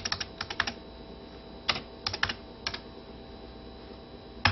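Typing on a personal computer keyboard: a quick run of about six keystrokes, a few more around two seconds in, and one sharper keystroke near the end, as a command is typed in to print a file.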